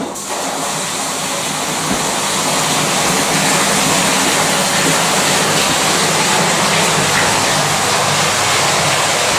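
Two pumps filling a flood-testing tank through hoses: water gushing and churning into the tank as a steady rushing that builds over the first few seconds. A low, steady pump hum runs underneath.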